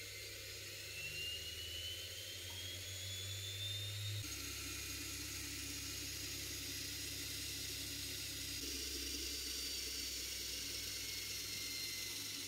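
Washing-machine motor spinning an aluminium faceplate, with a high electric whine that climbs in pitch over the first four seconds as it speeds up, then runs steady and slowly drops a little. The sound changes abruptly twice, about four and eight and a half seconds in.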